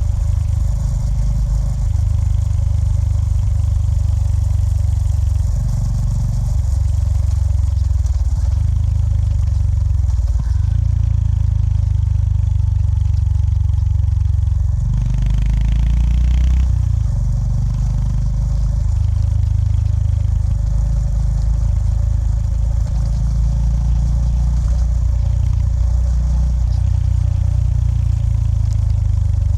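Honda GB350S's air-cooled single-cylinder engine running under way. Its low note swells and eases with the throttle, a few times, with the loudest swell, joined by a hiss, about 15 seconds in.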